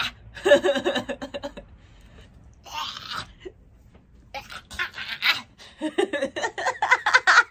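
A woman's voice laughing in bursts, breaking into quick repeated laughs near the end.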